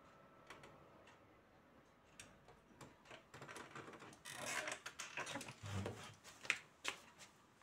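Faint clicks and rustling of a person moving about as he gets up from a keyboard after playing, louder after about four seconds, with a dull thump near six seconds.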